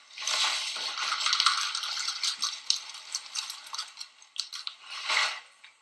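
Dry Wheaties flakes rattling and rustling in a bowl with small clinks: a dense crackle for the first couple of seconds, scattered clicks after, and a short burst near the end.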